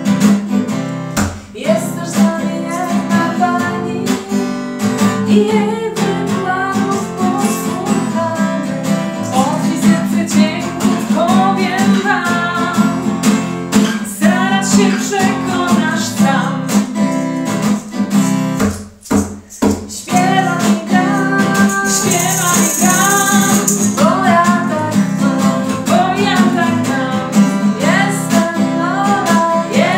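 Acoustic guitar strummed in a steady rhythm, accompanying women singing a song. The playing breaks off briefly about two-thirds of the way through, then carries on.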